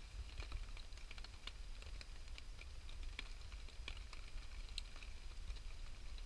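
Wood campfire crackling: irregular sharp pops and snaps, a few a second, over a low steady rumble.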